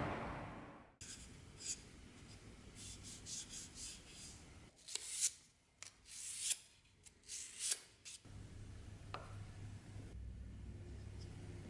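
Hand sanding of a wooden knife handle with sandpaper: a series of short, irregular rubbing strokes. After about eight seconds the strokes stop, leaving a faint low hum and one light tap.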